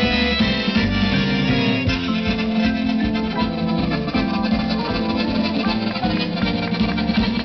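Live accordion music played through stage PA speakers, with steady low bass notes underneath.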